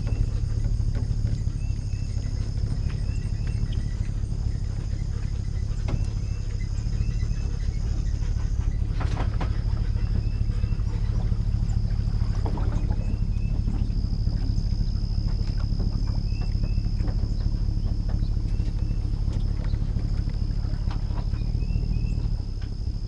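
Engine idling with a steady low rumble, while insects buzz in a thin high drone and birds chirp now and then.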